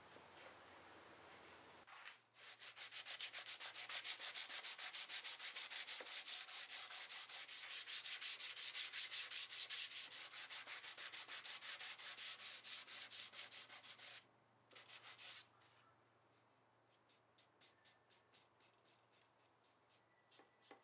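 Sandpaper on a hand sanding block rubbed back and forth over wood veneer, sanding a freshly glued-in veneer patch. The quick, even strokes run about five a second for some ten seconds. After a short break comes a run of lighter, sparser strokes near the end.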